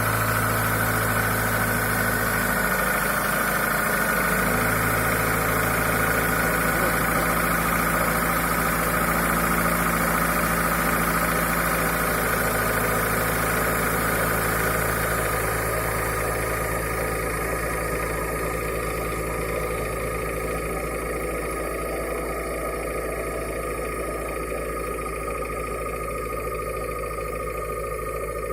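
Honda CR-V 2.0 four-cylinder petrol engine idling steadily about half a minute after a cold start at −17 °C, with the knocking that it makes in its first minutes when cold. It gets a little quieter from about halfway through.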